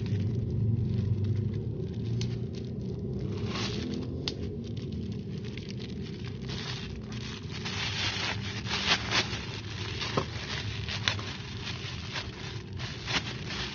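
Plastic bubble wrap being pulled and crinkled off a stainless-steel exhaust front pipe: scattered sharp crackles and rustling, loudest and densest past the middle, over a steady low hum.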